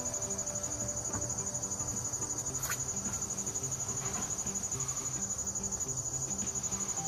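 Insects trilling: a steady, high-pitched, rapidly pulsing drone.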